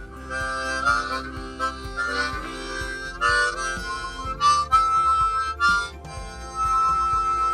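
Harmonica playing a short tune in breathy phrases of chords and single notes, settling on a long held note near the end.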